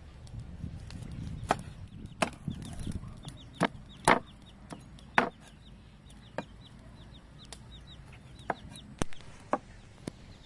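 Meat cleaver chopping catfish into pieces on a thick wooden chopping board: a string of sharp, irregular knocks, the loudest in the first half. Small birds chirp rapidly in the background.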